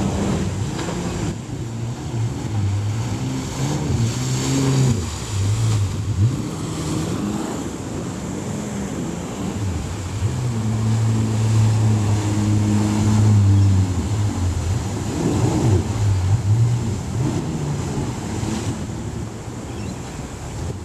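Jet ski engine running close by, its pitch rising and falling as it revs, and held steady for a few seconds midway, over the wash of churning wake water.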